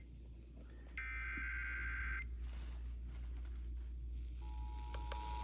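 Emergency Alert System tones on FM radio. A harsh, buzzing data burst of the SAME header lasts about a second, then a pause with a few faint clicks. About four seconds in, the steady two-tone EAS attention signal begins.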